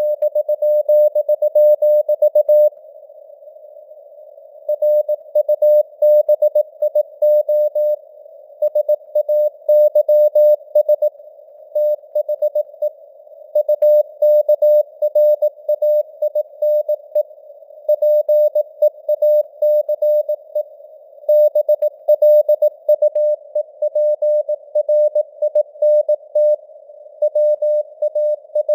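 Morse code sent at 18 words per minute as a single tone of about 600 Hz keyed on and off in dots and dashes, with longer gaps between words, over a narrow band of simulated receiver hiss. The signal strength slowly fades up and down (QSB), as on a real shortwave CW signal.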